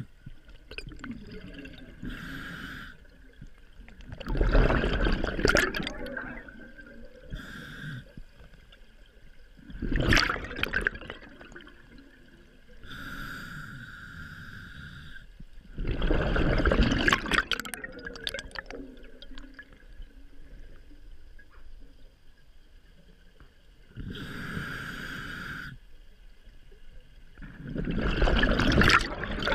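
A scuba diver breathing through a regulator underwater: a hissing inhale through the demand valve, then a loud burst of exhaled bubbles, repeating about every six seconds, four exhales in all.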